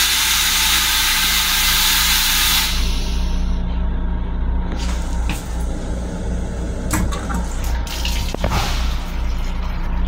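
An M7 railcar toilet flushing with a loud rushing pump-and-water noise that stops abruptly about a quarter of the way in. A steady low hum and a few clicks follow, and near the end water runs from the sink faucet.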